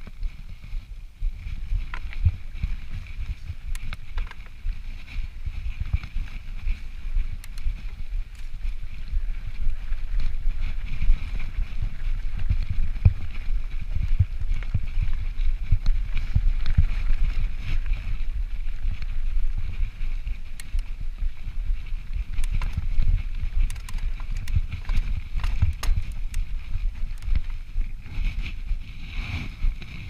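Yeti SB5 full-suspension mountain bike rolling over rough, rocky dirt singletrack: a continuous low rumble from the tyres and suspension, broken by frequent knocks and rattles as it hits bumps and stones.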